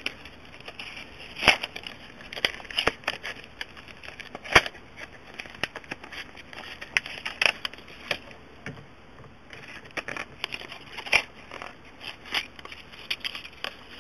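Knife cutting open a hard plastic blister package, the plastic crackling and snapping in irregular sharp clicks. The loudest snaps come about a second and a half in and again around four and a half seconds.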